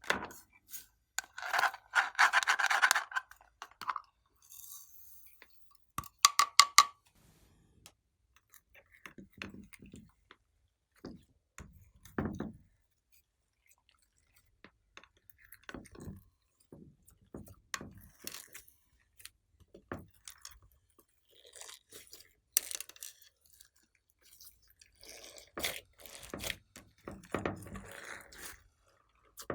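Glossy slime being squished and stretched by hand, giving irregular sticky crackles, pops and squelches with short quiet gaps between them. The loudest is a dense crackling burst about two seconds in, followed a few seconds later by a quick run of sharp pops.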